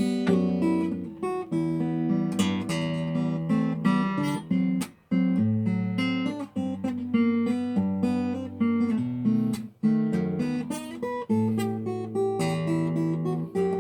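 Solo acoustic guitar playing a calm melody over plucked and strummed chords, with short pauses between phrases.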